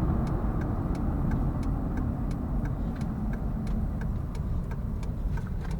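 A vehicle's turn signal ticking steadily, about three clicks a second, over a steady low engine and road rumble inside the cabin as it slows for a turn.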